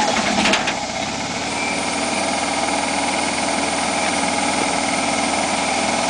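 Honda EU7000iS fuel-injected inverter generator started by wireless remote: its engine catches in the first second and then runs steadily, with a steady high whine settling in about a second and a half in.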